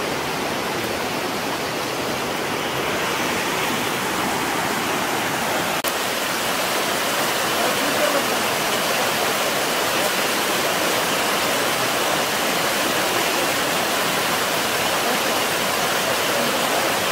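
Stream water rushing steadily over rocks in a small cascade.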